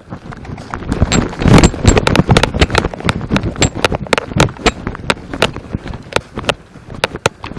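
Quick, irregular knocks and rattles, loudest early on around the first two seconds, typical of a player running with footsteps and jostling gear.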